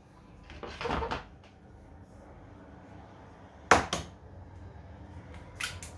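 Eggs being handled and cracked against the rim of a stainless steel mixing bowl: a rustling handling noise about a second in, a sharp crack near the middle, then lighter taps near the end.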